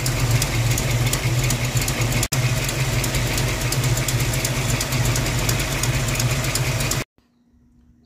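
1982 Mustang GT's 5.0 V8 idling with the rapid ticking knock of an exhaust leak at the driver's-side header, where the header gasket has blown out. The sound cuts off suddenly about seven seconds in.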